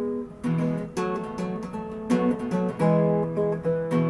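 Background music: acoustic guitar strumming chords, with the chord changing every second or so.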